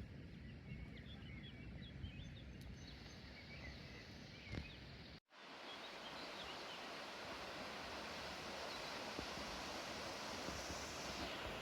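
Outdoor ambience: small birds chirping over a low rumble, then, after an abrupt cut about five seconds in, a steady rushing noise with a few faint chirps.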